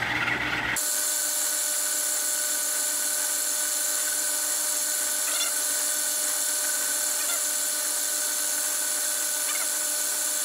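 Drilling machine spindle running steadily as a 1/8 inch bit cuts a hole through a brass blank: a steady motor whine made of several tones over a hiss, with a few faint short squeaks.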